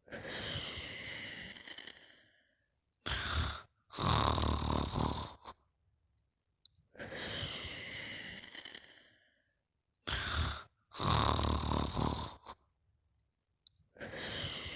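Slow, regular snoring, about one breath cycle every seven seconds. Each cycle is a short snort, then a louder snore, then a long airy breath that fades away over about two seconds. There are three of the long breaths and two of the loud snores.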